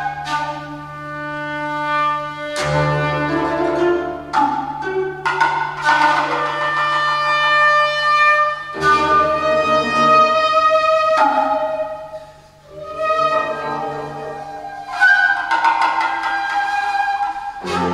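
Traditional Japanese trio of koto, shakuhachi and kotsuzumi playing. Sharp koto plucks ring and fade under long held shakuhachi notes, with a short lull about twelve seconds in.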